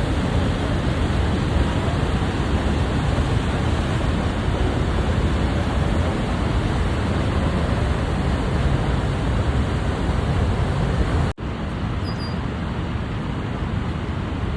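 Niagara Falls, heard up close: a steady, dense rush of falling water, strongest in the low end. About eleven seconds in it cuts out for an instant and comes back slightly quieter.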